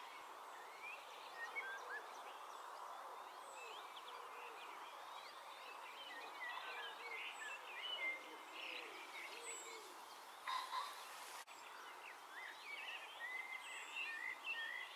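Many songbirds chirping and twittering together, and among them a thin, very high, falling "zieh" note about three times, the drawn-out call of a yellowhammer. A brief noisy burst comes about ten seconds in.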